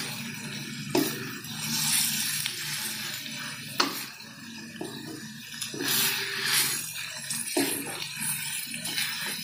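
Wooden spatula stirring and scraping meat around a nonstick wok during stir-frying, with a few sharp knocks of the spatula against the pan.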